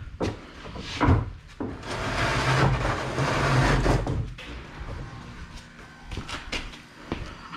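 Handling noises: a sharp knock about a second in, then about two seconds of loud scraping and rustling, then scattered light clicks and taps.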